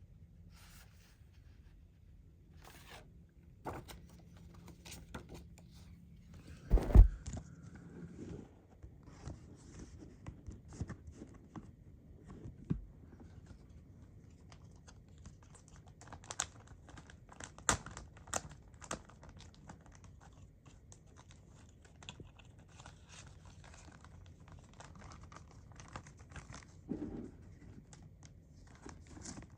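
A CD's packaging being opened and handled: wrapping rustles and tears, with scattered clicks and taps. The loudest is a single knock about seven seconds in.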